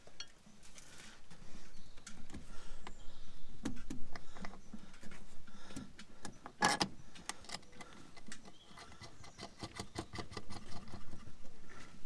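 Small metallic clicks and rubbing from a tractor throttle cable's threaded end and nut being worked by hand at its bracket while the cable is refitted. One click about two-thirds of the way through is louder than the rest, and there is a quick run of clicks near the end.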